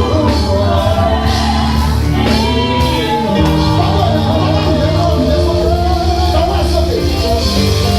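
Live gospel music: a lead voice sings over a band with a steady beat and sustained bass, amplified and loud.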